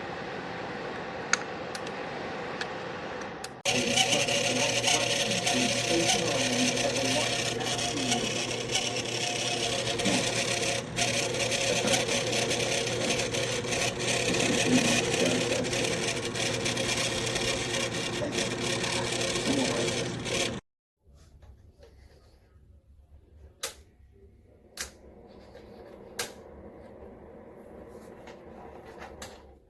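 Black+Decker portable space heater's fan running with a steady hum and a scratchy rattle, getting much louder about four seconds in. It cuts off suddenly about two-thirds of the way through, leaving a fainter hum and a few sharp clicks.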